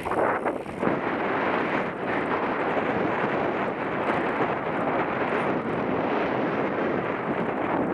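Steady wind rushing over a helmet-mounted camera's microphone while riding a mountain bike along a dirt trail.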